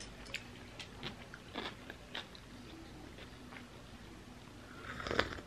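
Close-up chewing of a tortilla quesadilla, with small crisp crunches every so often. Near the end comes a louder noisy swell as she sips coffee from a mug.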